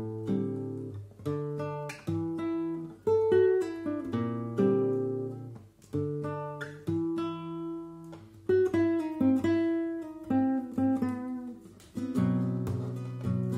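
Nylon-string flamenco guitar playing a tangos falseta: a run of picked single notes that ring and fade, broken every few seconds by fuller strummed chords.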